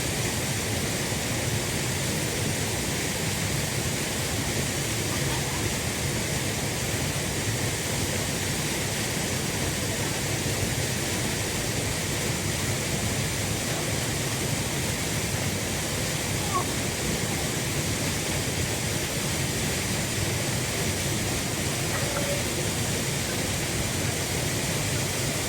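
Waterfall rushing: a steady roar of falling water with no let-up.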